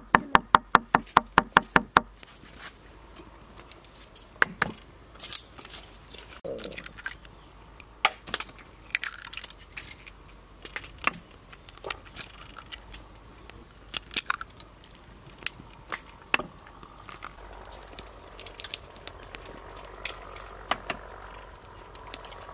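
Cleaver chopping garlic on a wooden board in fast, even knocks, about six a second, stopping about two seconds in. After that come scattered single sharp taps and clicks as duck eggs are cracked into a clay bowl.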